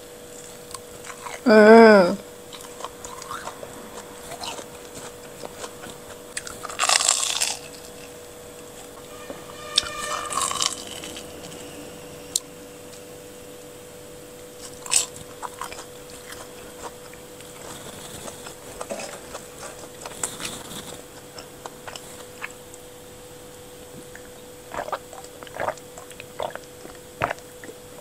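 Close-miked biting and chewing of a crispy crumb-coated corn dog: scattered crunches, with one loud crunch about seven seconds in. About a second and a half in comes a short hummed vocal sound that bends in pitch, the loudest moment.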